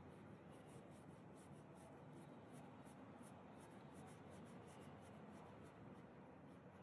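Faint scratching of a paintbrush's bristles on canvas, short strokes about three a second, over low steady hiss.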